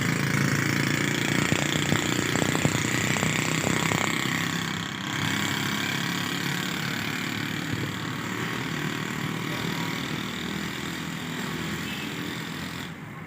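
A vehicle engine running steadily amid street traffic, with a cluster of light clicks and rattles between about one and four seconds in.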